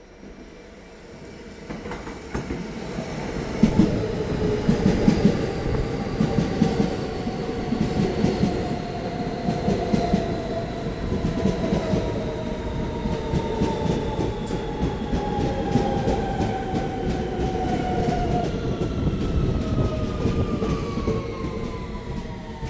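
R160 subway train coming into the station and rolling along the platform. Its wheels clack over the rail joints, and a whine from the motors falls slowly in pitch as the train slows.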